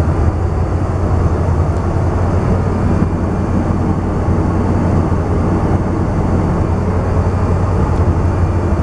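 Steady cabin noise of an airliner in flight, heard inside its lavatory: an even low drone with a strong deep hum and a rushing haze above it.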